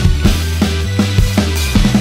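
Background music: a fast, driving drum beat over sustained bass notes.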